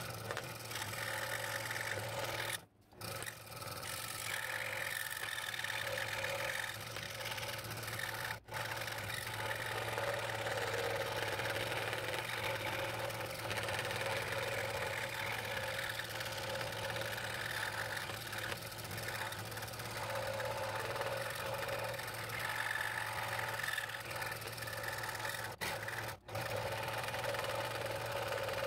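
Scroll saw running steadily as its fine blade cuts a pattern through wood. The sound drops out briefly three times: about three seconds in, about eight seconds in, and near the end.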